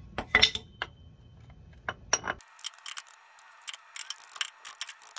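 Light metal taps and clinks of a long socket extension against a new front output shaft seal, tapping it into a 208 transfer case. The sharpest taps come in the first couple of seconds. About two and a half seconds in the sound turns thin and tinny, leaving fainter clicks.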